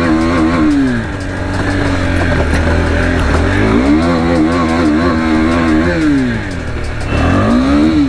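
KTM RC 390's single-cylinder engine revving in bursts while riding over a rough dirt track. The revs fall about a second in, climb near the middle and hold with a wobble, drop back, then climb again near the end.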